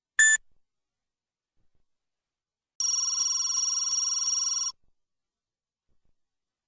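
Two TV sound effects: a short high beep, then about two seconds of a telephone-style bell ringing, restruck about three times a second and cutting off sharply.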